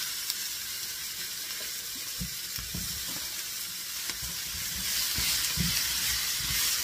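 Vegetables stir-frying in a hot frying pan: a steady sizzle, with a wooden spatula knocking against the pan now and then as zucchini slices go in and are stirred through. The sizzle grows louder about five seconds in.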